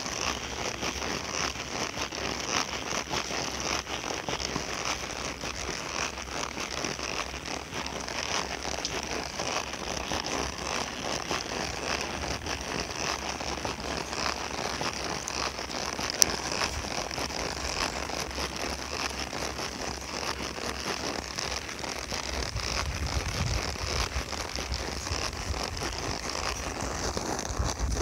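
A horse walking on an asphalt road, its hooves clopping on the pavement amid a steady crackly noise, with one sharp click about halfway. A low wind rumble on the microphone builds in the last few seconds.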